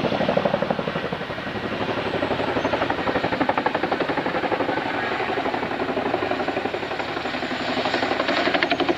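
Boeing CH-47 Chinook tandem-rotor helicopters flying overhead: a steady, rapid chopping of rotor blades that dips slightly about a second in and swells again near the end.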